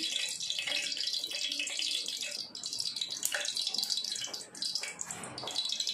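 Oil sizzling in a frying pan on the stove, a steady hiss, with a few light knocks as eggs are cracked against a small metal bowl.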